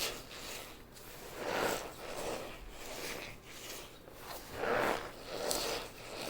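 Dry floral foam coated in powder being crushed by hand, crunching and squeaking in several separate squeezes, two of them louder than the rest.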